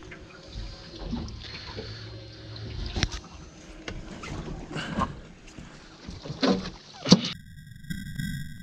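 Knocks and thumps of handling on a small fishing boat, over water lapping against the hull. Near the end the sound changes suddenly to a steady, high electronic tone.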